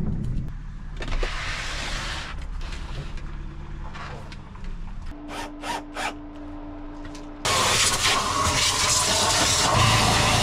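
A CMI cordless drill runs with a steady hum for about two seconds. About seven and a half seconds in, a wet/dry shop vacuum switches on suddenly and runs loudly and steadily.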